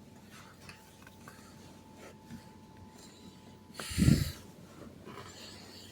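Mostly quiet room, broken about four seconds in by one short, loud nasal breath or snort from a person near the microphone.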